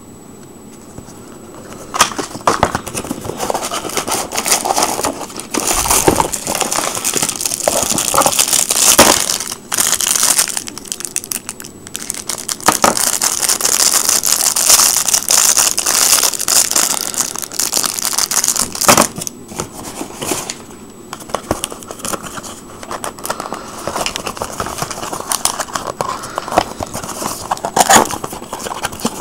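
Plastic bag and packaging being handled and opened by hand, a continuous crinkling and rustling with many sharp clicks, starting about two seconds in.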